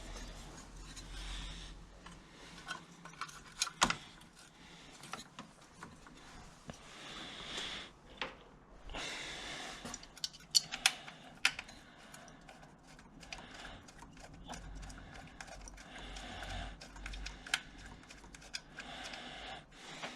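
Hands handling and fitting ignition leads onto a new ignition coil: scattered sharp plastic clicks and knocks amid rustling. The loudest clicks come about four seconds in and a cluster of them around eleven seconds in.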